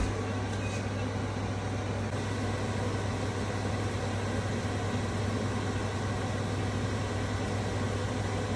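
Kitchen range hood fan running with a steady low hum and even whoosh of air.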